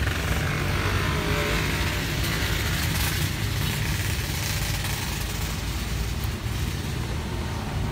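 Steady street traffic rumble, with a vehicle going by in the first few seconds.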